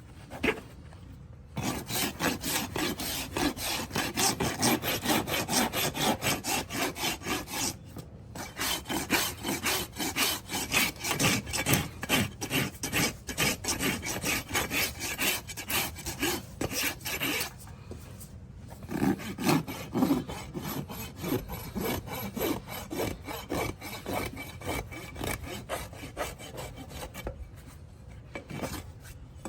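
A farrier's hand tool scraping a horse's hoof in quick repeated strokes, in runs broken by a few short pauses.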